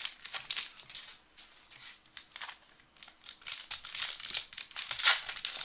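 Trading-card pack wrappers being torn open and crinkled by hand, in clusters of crackling with a short lull in the middle before the crinkling picks up again.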